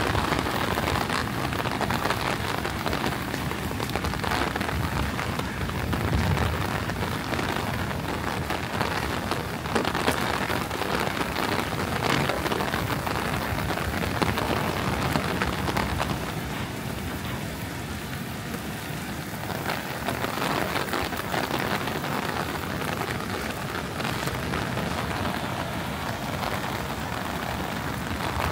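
Heavy rain falling and pattering on the ground and surfaces around, a steady dense hiss full of individual drop hits. It eases slightly for a few seconds past the middle.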